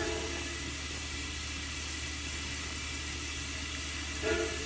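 Steady hiss of steam escaping from a steam locomotive as it creeps forward off a turntable, with a short louder sound about four seconds in.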